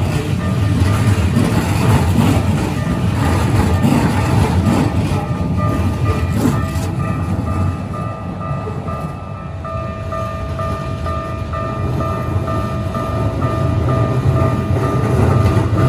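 A Keikyu Line train rumbling over a level crossing, wheels on rail, loud at first and easing about halfway through, then building again near the end. Over it the crossing's warning bell rings in an even, repeating ding.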